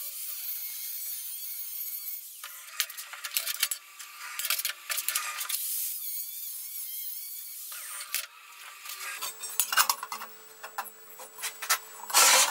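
Makita GA5030 angle grinder cutting through thin steel sheet with a cut-off disc, a hissing grind in several short stretches. In the last few seconds, sheet-metal panels clink and tap as they are handled, with one loud clank near the end.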